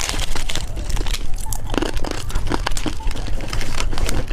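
Plastic wrapper of a popping candy packet crinkling and tearing as it is opened and handled, a dense run of irregular sharp crackles.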